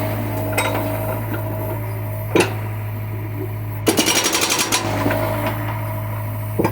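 John Deere excavator's diesel engine running steadily, with a burst of rapid rattling and clanking about four seconds in, lasting about a second, another starting near the end, and a single sharp knock about two and a half seconds in.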